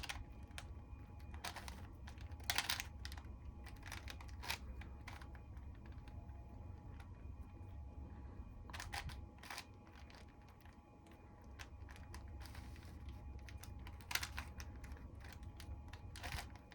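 Plastic Rubik's Cube being twisted by hand: irregular clicks and clacks as its layers turn, with a few sharper clacks among softer ticking.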